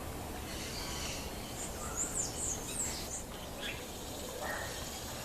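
Wild birds singing outdoors: a quick run of high, sliding chirps about two seconds in, with fainter calls before and a lower call near the end, over a steady low background hiss.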